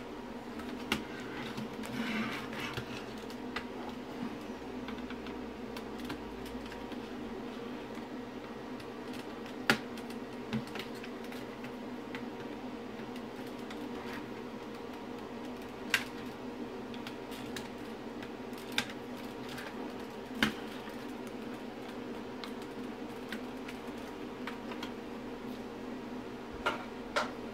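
Scattered sharp plastic clicks and snaps as a screwdriver prises open the clips of a car instrument cluster's plastic casing, over a steady low hum.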